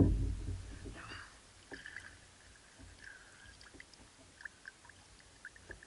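Estuary perch splashing as it is scooped into a landing net at the kayak's side: one loud splash right at the start that dies away within about a second, followed by a few light knocks from the net and handle.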